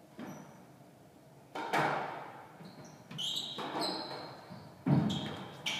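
Squash rally: a series of sharp knocks of racket on ball and ball off the walls, ringing in the enclosed court, the loudest near the end, with short squeaks of court shoes on the wooden floor.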